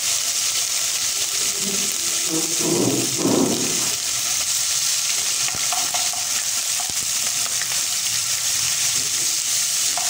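Garlic and ginger paste sizzling steadily as it fries in hot oil in a nonstick kadhai, stirred with a wooden spatula, with a brief lower, louder sound about three seconds in.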